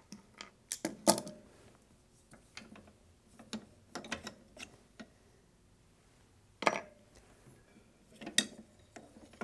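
Small metal parts clicking and clinking as a hairpin clip and a pin are worked off a recliner's steel footrest actuator linkage. A quick cluster of clicks comes in the first second, the loudest about a second in. Scattered light taps follow, then two sharper knocks later on.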